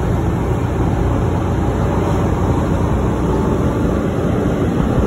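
Steady low road and wind noise of a car driving along, heard from inside the moving car.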